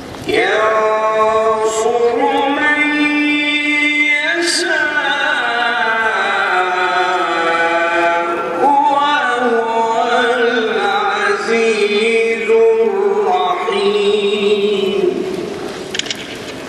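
A single voice chanting in long, wavering, ornamented held notes. It starts abruptly just after the beginning and fades out near the end.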